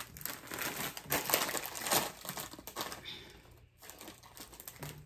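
Crisp packet crinkling as it is handled and pulled open, a dense crackle for about three seconds that then thins out and fades.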